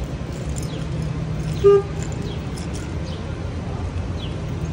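Steady low rumble of city street traffic, with one short car-horn toot about a second and a half in, the loudest sound, and small birds chirping now and then.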